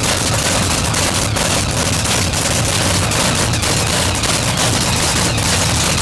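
Supercharged V8 engine of the Frantic Ford funny car running steadily through open exhaust headers, a loud, rapid crackle without any revving.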